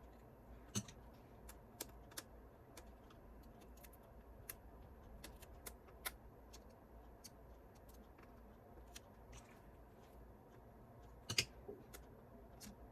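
Sparse light clicks and taps of small parts and tools being handled during repair work on a gyro stage mechanism, with a sharper click about a second in and a louder pair of knocks near the end.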